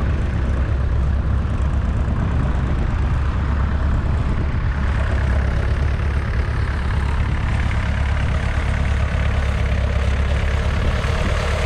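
The 2.5-litre four-cylinder diesel engine of a 1969 McCormick 434 tractor, running steadily.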